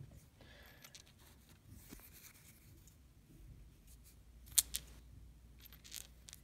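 Faint handling of quartz arrowheads on a knit cloth: soft rubbing and a few small clicks of stone against stone, the sharpest about four and a half seconds in.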